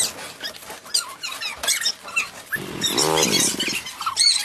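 An animal's cry: one drawn-out call, rising then falling in pitch, about three seconds in, with scattered light clicks and knocks around it.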